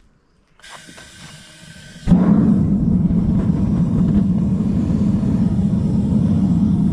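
Propane burner on a homemade metal-melting furnace being fired up: gas hisses from about half a second in, then about two seconds in the burner jumps to a loud, steady, low burning noise as it is turned up.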